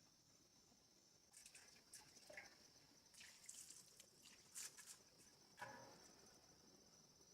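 Faint, steady high-pitched insect drone in the forest, with a scatter of soft clicks and rustles between about one and six seconds in.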